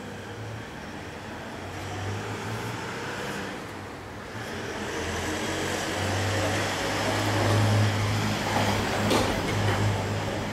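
Motor traffic passing on the street: a vehicle running and growing louder through the middle, over a steady low hum, with a brief knock near the end.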